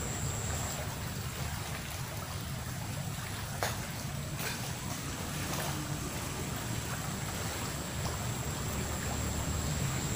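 Steady outdoor background noise with a low, unsteady rumble like wind on the microphone and a faint, high, steady whine. Two light clicks come about three and a half and four and a half seconds in.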